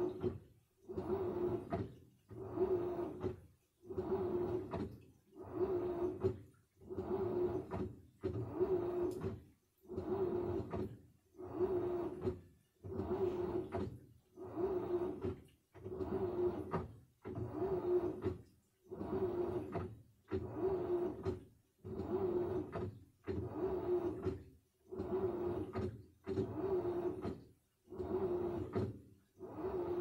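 Samsung washing machine in its wash cycle: the motor turns the drum in short, even strokes about once every second and a quarter. Each stroke carries a motor whine and a swish, with a brief pause between strokes.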